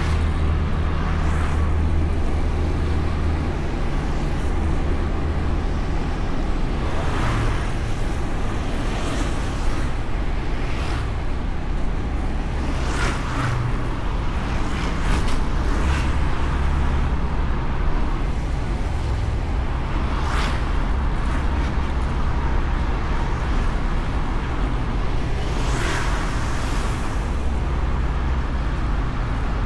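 Honda Beat scooter under way, heard from a camera mounted on the bike: a steady low rumble of engine, road and wind, with other vehicles swelling past now and then.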